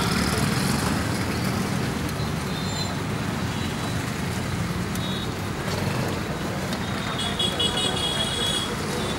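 Steady street traffic noise, a low rumble of passing vehicles. A vehicle horn beeps in a short pulsing burst near the end.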